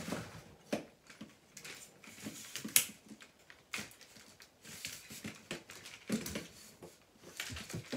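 A large tripod's legs being handled and adjusted: a run of irregular clicks, knocks and light rattles from the leg sections and their clamps, with one sharper knock about three seconds in.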